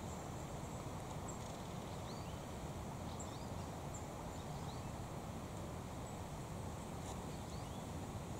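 Short, high bird chirps, several of them rising in pitch, scattered over a steady low rushing noise.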